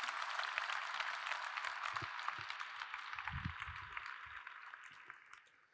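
Large audience applauding, the clapping slowly dying away and ending just before the talk resumes.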